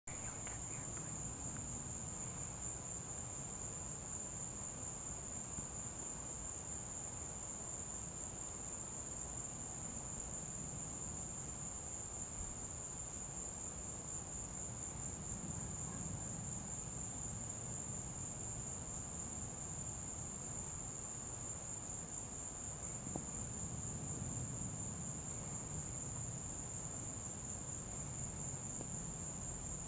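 Night insects trilling in one steady, unbroken high-pitched chorus, over a faint low rumble in the background.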